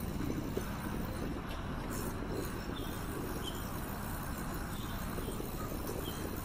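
Steady low rumbling noise of riding a bicycle: wind on the microphone and tyres rolling on a paved cycle path, with a few faint high chirps.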